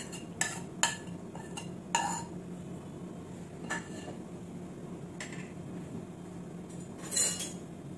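Spoon clinking and scraping against a plate and a stainless steel pot as dry spices are tipped in: several sharp clinks in the first two seconds, then a few scattered ones, the loudest near the end. A low steady hum runs underneath.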